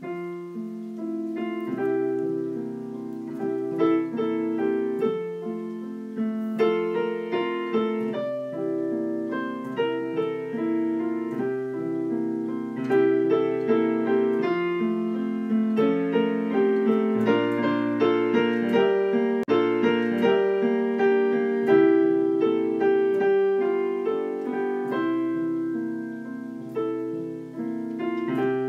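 Piano music playing continuously, a stream of melody notes over held chords.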